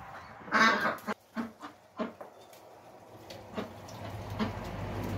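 Domestic ducks quacking: one loud quack about half a second in, then a few shorter, fainter quacks. A steady low hum comes in near the end.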